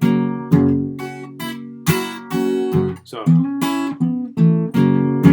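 Guitar played fingerstyle: a blues phrase of plucked notes and chord stabs over a ringing bass note, about eight separate attacks, each left to ring and decay.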